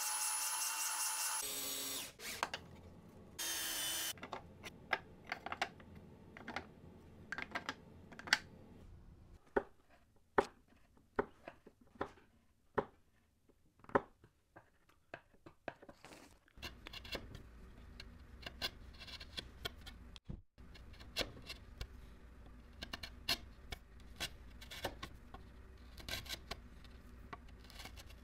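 A spindle sander runs briefly, sanding a small piece of walnut. Then a bench chisel pares walnut at a rabbet and a shoulder in many short, crisp slicing strokes, spaced irregularly about a second or less apart.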